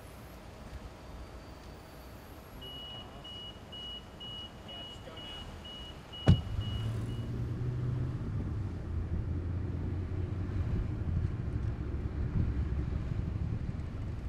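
Inside a car, a warning chime beeps about twice a second for several seconds. A single sharp knock comes about six seconds in, and after it the low engine and road rumble of the moving car grows louder.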